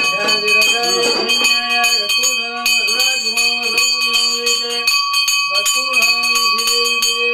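Brass puja bell rung rapidly and continuously during the camphor-flame arati, a steady ringing over fast clapper strikes. A melodic line stepping between a few notes goes on alongside.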